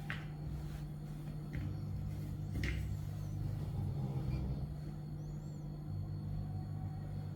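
Steady low hum over a low rumble, with a few faint clicks and two brief high chirps.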